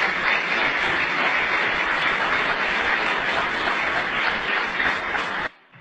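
Audience applauding steadily, cutting off suddenly near the end.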